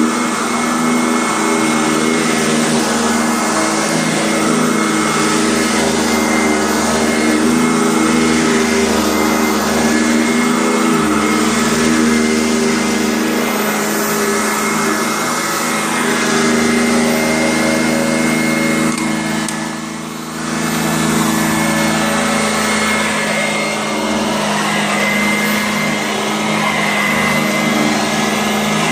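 Kent Euroclean vacuum cleaner running steadily with a motor whine, its level dipping briefly about two-thirds of the way through.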